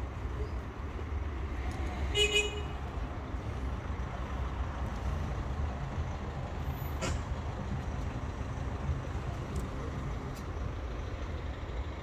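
Steady low rumble throughout, with a short, flat, high toot about two seconds in and a sharp click about seven seconds in.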